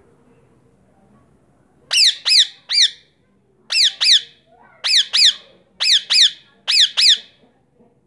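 Male ringneck parakeet screeching: about eleven short, shrill, loud squawks, each falling in pitch, in quick pairs and one triplet, starting about two seconds in.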